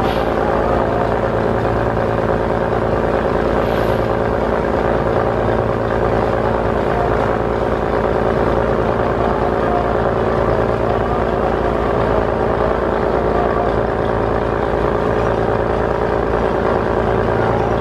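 A boat's diesel engine running steadily: an even, unbroken drone that holds the same pitch throughout.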